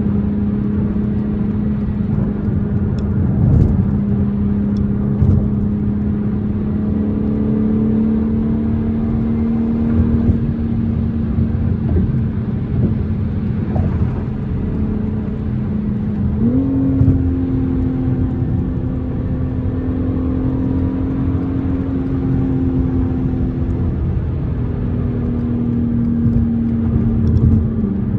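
BMW M4 Competition's twin-turbo inline-six running under a steady light load over road noise, its hum slowly rising in pitch, jumping up sharply about halfway through and stepping back down twice later, as the gearbox shifts.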